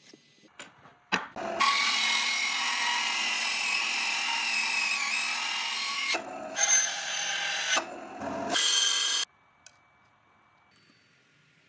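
A power tool running in three bursts, a long one of about four seconds and then two shorter ones, with a brief click just before the first.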